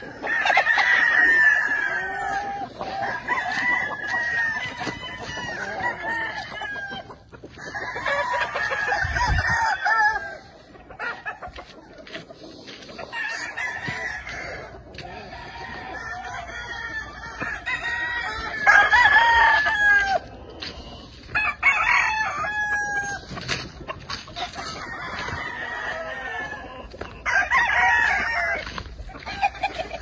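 Several gamefowl roosters crowing in turn, a long crow every two or three seconds, some crows overlapping one another.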